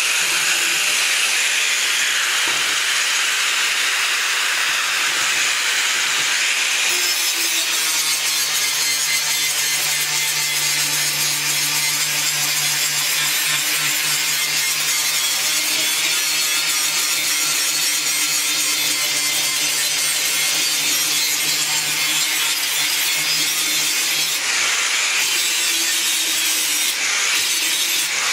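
Angle grinder grinding down a line of spot welds on steel sheet metal, the abrasive disc hissing steadily on the steel. A deeper hum from the grinder joins about seven seconds in and fades near the end.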